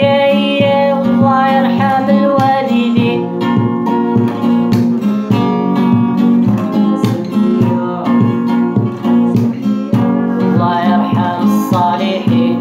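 Acoustic guitar strummed in a steady, even rhythm, playing a Gnawa song. A man's singing voice holds a long note at the start and comes back near the end.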